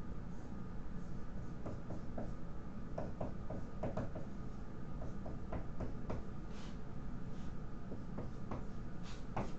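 Dry-erase marker writing on a whiteboard: irregular short squeaks and taps as the strokes are drawn, over a steady low room hum.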